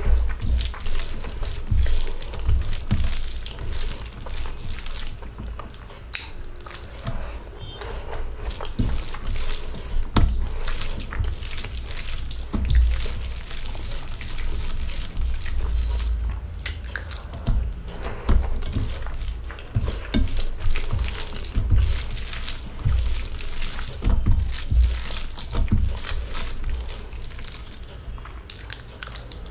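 Eating rice and egg-omelette curry by hand from a steel plate: wet squelching as the fingers mix the rice into the curry, with chewing and lip-smacking. Irregular clicks and dull low thumps run throughout.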